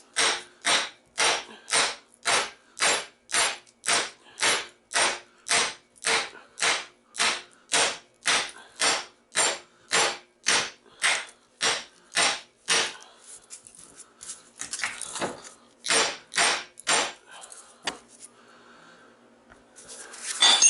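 Hammer blows on a scrap transformer clamped in a vise, knocking the copper coils out of the steel core. Steady strikes about two a second for some thirteen seconds, then after a short pause a few more, lighter knocks, and one sharp loud hit near the end.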